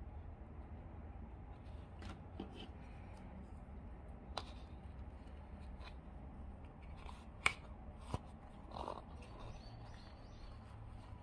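Latex balloon neck being stretched onto a clear plastic funnel spout: scattered light clicks and taps of plastic and rubber, the sharpest about seven and a half seconds in, with a short rustle just after, over a low steady hum.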